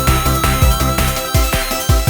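Upbeat electronic background music with a steady thumping beat and a held synth lead note.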